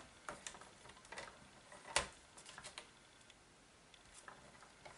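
Faint clicks and ticks from a paper trimmer's sliding cutter being run down its rail through glossy cardstock, with one sharper click about two seconds in.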